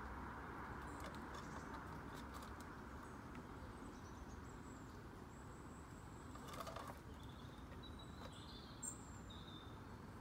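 Quiet outdoor garden ambience: a steady faint background hiss, with a few short distant bird chirps and some light clicks in the second half.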